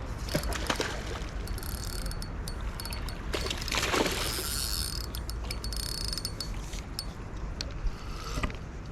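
Fishing reel clicking as line is worked during the fight with a hooked carp, a stream of ratchet-like ticks, with a louder rushing swell about four seconds in.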